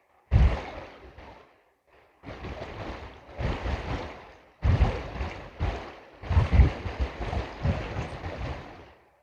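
Water sloshing and splashing in a gold pan as material from a bedrock crevice is washed. It comes in several bursts, each starting sharply, with short breaks between them.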